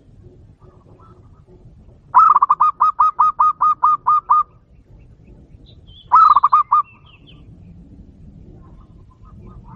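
Zebra dove (perkutut) calling: a fast run of about a dozen short, clipped cooing notes, then a second run of five a couple of seconds later.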